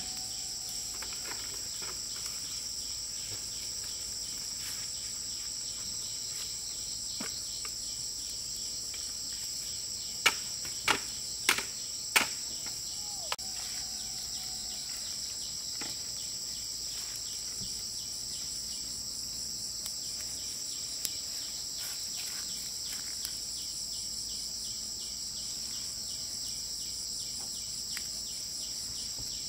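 Steady high-pitched chorus of insects droning without a break, with four sharp knocks in quick succession about ten to twelve seconds in.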